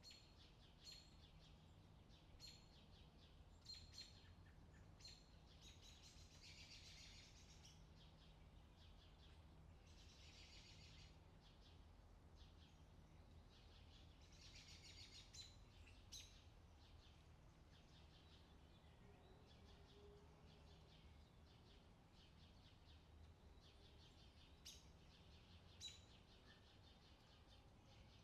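Faint outdoor summer ambience: birds chirping in short high calls, with a few longer trilling bursts, over a faint steady low hum.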